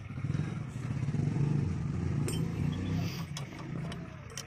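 A motor vehicle engine running in the background, swelling and then fading away near the end, with a few light metallic clinks of spanners on the engine's fittings.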